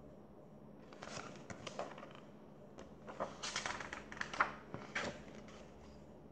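Paperback picture book being handled and its pages turned: paper rustling and crinkling with small clicks, in two spells, the second longer and louder.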